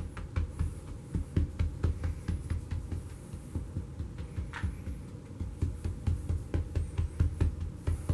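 A long-handled scrub brush smacking down on carpet in a quick run of dull thumps, roughly two to three a second, with a few sharper taps. It is breaking clumps of test dirt into powder.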